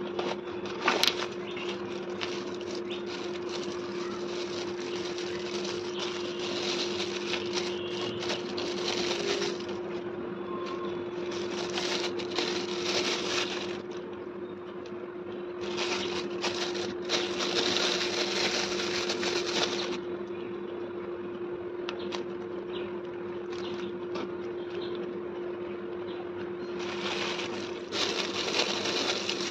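Crumpled paper packing and a clear plastic bag rustling and crinkling in several bursts as small ceramic figurines are unwrapped by hand, over a steady low hum.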